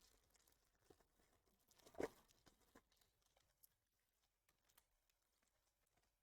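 Near silence in a small room, with a few faint taps and one soft knock about two seconds in, typical of sports cards and packs being handled on a table.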